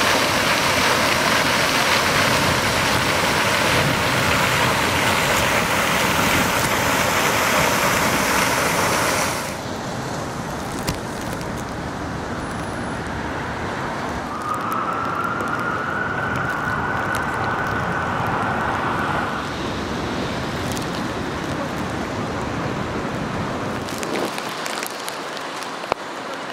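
Water from a park fountain's jet splashing down into its basin, a loud even rush that cuts off about nine and a half seconds in. After that, quieter street noise on wet pavement, with a faint siren-like tone rising slightly and then holding for about five seconds.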